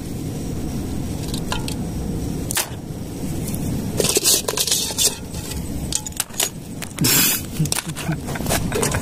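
Metal utensils and dishes clinking and scraping in kitchen handling, over a steady low rumble. There are scattered sharp clicks and two short hissing bursts, about four and about seven seconds in.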